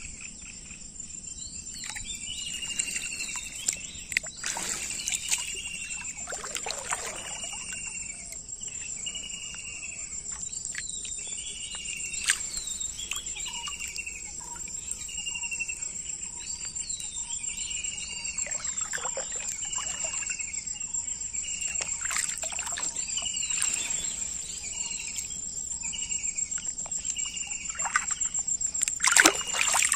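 Insects trilling steadily at a high pitch, with a short chirping call repeated about once a second. Occasional splashes and sloshes of water are heard as hands work in the shallow river, the loudest near the end.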